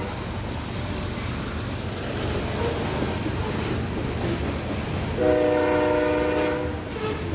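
Covered grain hopper cars of a freight train rolling past with a steady rumble of wheels on the rails. About five seconds in, a locomotive horn sounds one steady blast of about a second and a half.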